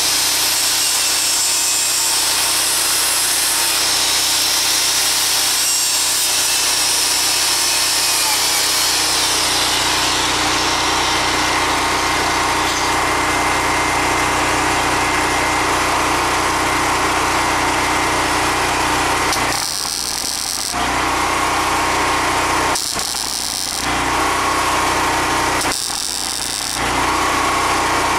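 DeWalt angle grinder with a wire wheel running against the sheet-metal seam of a rocker panel, cleaning it to bare metal for welding. The steady running sound changes character about ten seconds in, and near the end the level dips briefly three times.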